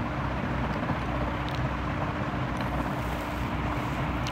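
Steady background noise with a faint constant hum, the noise floor of the voice-over recording between phrases.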